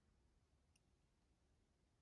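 Near silence: room tone, with a single faint click about three quarters of a second in.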